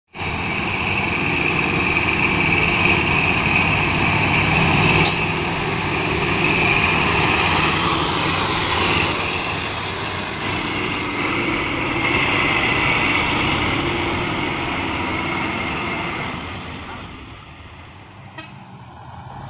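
Heavy diesel trucks running on the road, a continuous engine and tyre noise with a steady high whine over it, dropping away near the end.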